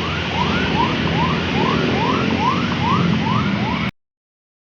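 Bus telolet horn sounding a rapid run of short rising whoops, about two to three a second, over engine and road noise. The sound cuts off abruptly about four seconds in.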